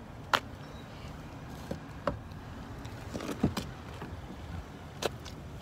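A few scattered sharp clicks and knocks over a faint steady outdoor background. The loudest comes near the start, with a small cluster about three and a half seconds in and another single click near the end.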